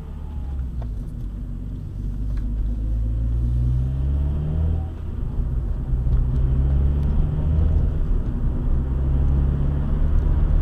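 Car engine and road noise heard from inside the car's cabin, the car accelerating: the engine note climbs, drops back about halfway through, then climbs again, over a steady low rumble.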